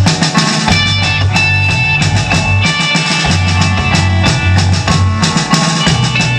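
Rock band playing live: a drum kit keeping a steady beat under bass and electric guitar, with held guitar notes above.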